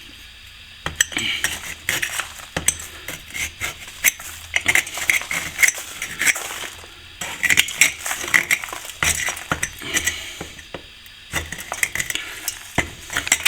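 A metal hand tool scraping and picking at soft, crumbling old lime mortar and plaster around a hole in a brick wall: bursts of scratching and small clicks, with a couple of short pauses.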